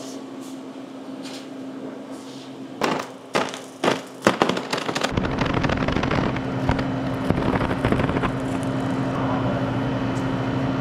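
A 2,000-watt laser burning through a cardboard box: a steady electrical hum, a run of sharp pops and crackles about three to four seconds in, then a louder continuous crackling noise as the cardboard burns through and catches fire.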